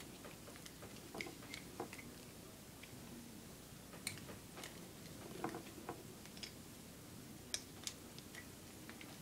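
Faint, irregular small clicks and taps with light rustling, a few of them sharper about four, five and a half, and seven and a half seconds in.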